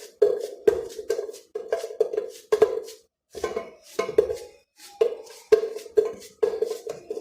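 Knife cutting unripe plantain, each stroke a sharp knock with a short ringing, about two a second, with a brief pause about three seconds in.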